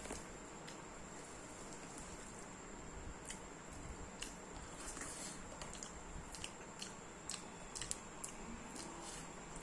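Soft, scattered small clicks and squishes of a hand mixing rice on a banana leaf, with mouth sounds of chewing, over a faint steady hiss.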